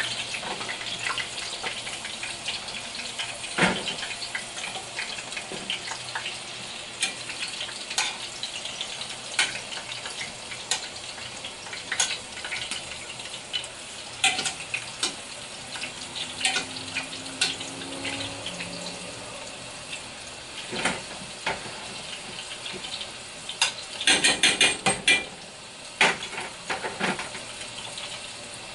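Food deep-frying in a skillet of hot oil: a steady sizzle with crackles, while a slotted spoon and tongs click against the pan and a wire cooling rack. Near the end comes a quick run of louder clicks.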